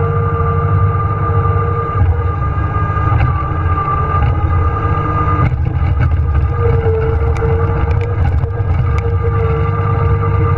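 John Deere 1023E compact tractor's three-cylinder diesel engine running steadily, with a steady whine over the low rumble. Faint ticks and clatter come through in the second half.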